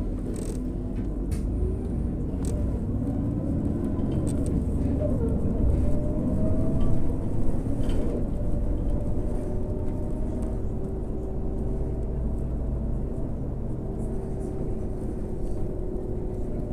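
Irisbus Crealis 18 GNV articulated gas-powered bus under way, heard from on board: a steady low rumble with a rising whine a few seconds in, then an even hum.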